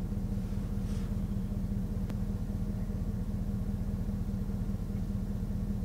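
Vehicle engine idling with a steady low hum, and a faint click about two seconds in.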